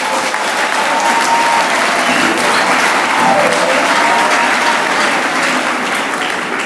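Church congregation applauding, with steady massed clapping that tapers off near the end.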